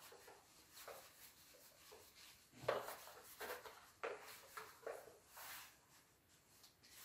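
Whiteboard eraser wiping marker off a whiteboard: a faint run of short, irregular rubbing swipes.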